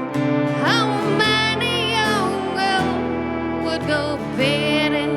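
Folk band playing a tune: a melody line that slides up about a second in and wavers, over sustained lower notes.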